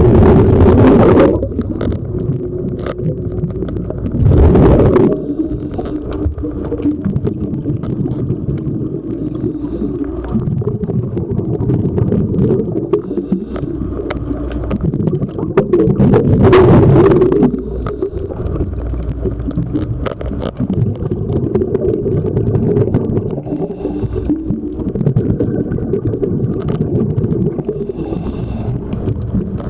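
Underwater sound of a diver's breathing: loud rushes of exhaust bubbles from the regulator, three times (at the start, about 4 seconds in and about 16 seconds in), over a steady low rumble of water.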